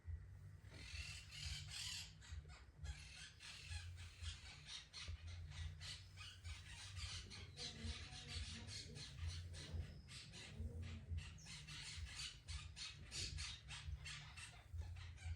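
Cat licking its fur with quick rasping strokes, several a second, in a close, faint, continuous run.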